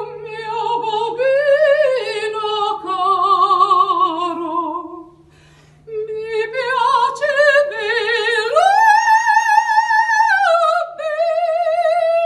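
A woman singing opera unaccompanied, in a high voice with wide vibrato: two phrases with a short break about five seconds in, the second climbing to a long held high note that then drops a little.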